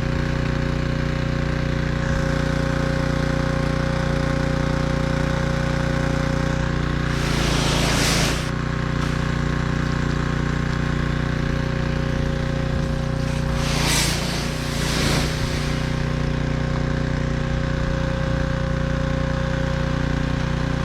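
Gas-powered pressure washer's engine running steadily, with two short hissing surges of spray about a third and two-thirds of the way through. The spray is not consistent: the water supply from a battery transfer pump is not keeping up.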